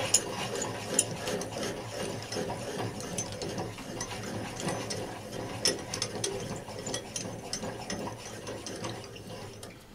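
Hand-cranked Deluxe Coiling Gizmo winding wire onto a welding-rod mandrel: the handwheel and shaft turn steadily with a continuous patter of fine mechanical clicks, fading near the end.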